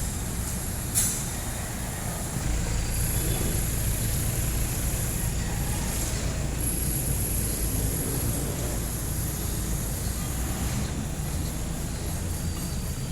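Street traffic with the steady low rumble of jeepney diesel engines. A sharp click comes about a second in, and a thin high-pitched whine sounds twice for a few seconds each, in the middle.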